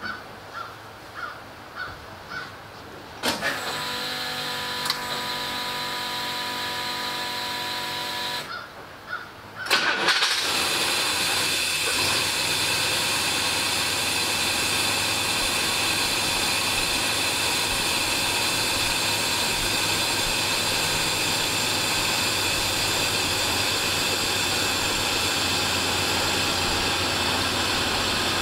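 Cold start of an International Harvester 345 V8 with FiTech throttle-body fuel injection. A steady electric hum runs for about five seconds as the system primes fuel at key-on, then the engine cranks briefly and catches on the first try about ten seconds in, running steadily after that. The start is a good one-crank start, where the engine used to need about three cranks.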